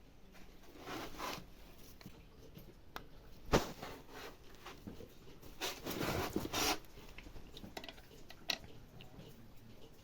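Scattered handling noises: rustling and scraping, with a sharp knock about three and a half seconds in and a short click near the end.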